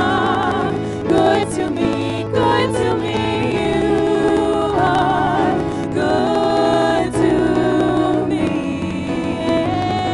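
A group of women singing a contemporary worship song in harmony into microphones, with long held, wavering notes, over steady instrumental accompaniment.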